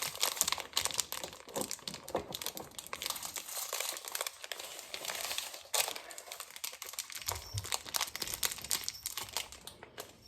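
Small plastic bag crinkling and crackling in the hands as it is worked open to get a toy figure out.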